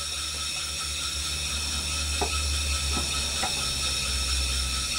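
Steady hiss with a low hum from a gas-fired 1-inch Minnie live-steam traction engine standing in steam, with a few light taps as a canopy is fitted onto it.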